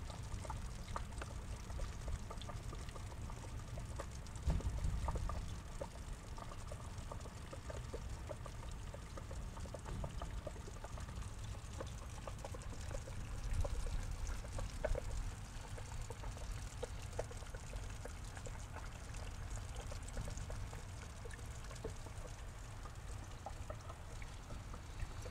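Water trickling and pouring in a small pond, with scattered small drips and ticks over a low rumble.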